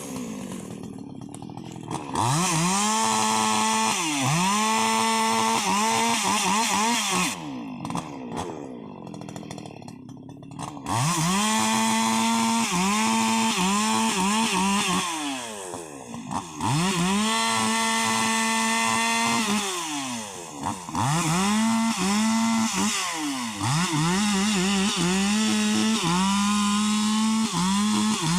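Husqvarna 288 XP two-stroke chainsaw running at full throttle in long held bursts, its pitch dipping and climbing again between them, typical of bucking rubberwood. It drops back to idle briefly at the start and for a few seconds about a third of the way in.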